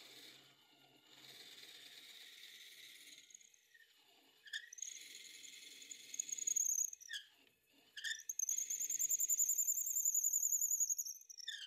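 Twist drill bit in the tailstock chuck of a cue lathe boring into the end of a spinning wooden cue blank: a hiss of cutting broken by high, wavering squeals from the bit. There are a few short squeals in the middle, then a longer, louder one that drops in pitch as it stops near the end.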